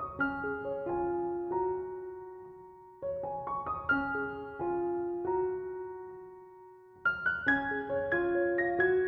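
Soft background piano music: short phrases of single notes that ring and fade, a new phrase starting about every three to four seconds.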